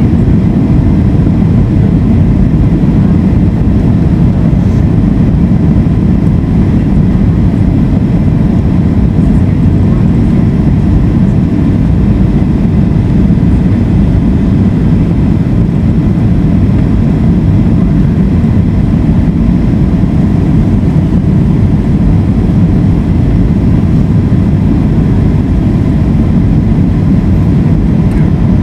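Steady low rumble of a Boeing 757's engines and rushing air, heard inside the passenger cabin on approach, with a faint steady high tone above it.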